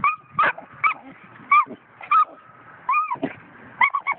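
Five-month-old coonhound puppy giving short, high yelps in quick succession, about two a second, with one longer drawn-out yelp about three seconds in: excited, attention-seeking calls.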